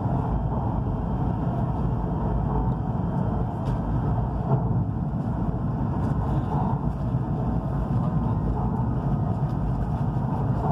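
Steady low rumble of a high-speed train running at speed, heard inside the passenger carriage.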